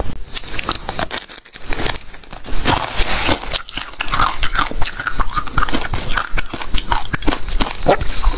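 Close-miked eating: bites, crunching and chewing with wet mouth smacks, a dense run of crackly clicks with a brief lull about one and a half seconds in.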